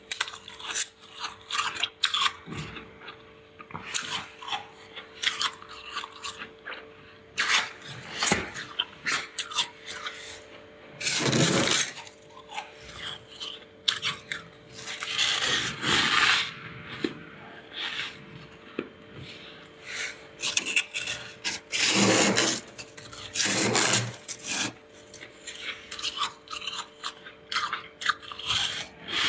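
Thick freezer frost being scraped loose and crunched between the teeth: a run of short, crisp crackles, with several louder, longer bursts of crunching near the middle and again later.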